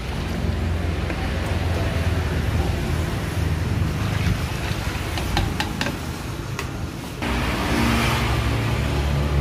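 Liquid poured in a thick stream from a plastic jug into a steel bowl of frothy liquid: a steady splashing rush over a low, steady hum, with a few light clicks about five to six seconds in. About seven seconds in the sound changes abruptly to a louder, deeper hum.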